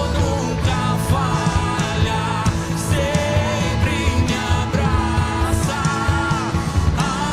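Christian worship song playing with a full band: drums, bass and sustained instruments, with a voice or lead melody over them.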